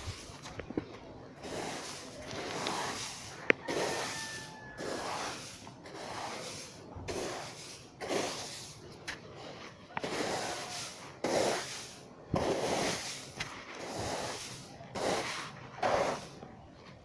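Loose paddy grains rustling in rhythmic swishes, about one a second, as the drying rice is stirred and pushed about.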